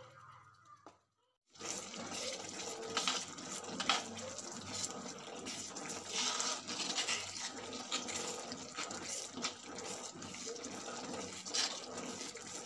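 Chicken and masala gravy sizzling in a frying pan, a steady hiss with scattered scrapes and clicks of a spoon stirring through it. The sound drops out briefly about a second in, then carries on.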